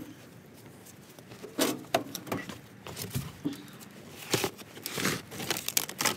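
Scavenged electrical wires and network cables being gathered by hand: irregular rustling, crinkling and small clicks of insulation and plugs knocking together, starting about a second and a half in.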